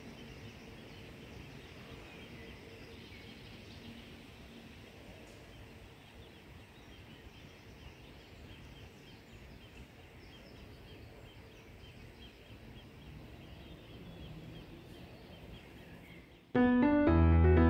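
Faint outdoor ambience with small bird chirps. About sixteen seconds in, loud piano background music starts abruptly.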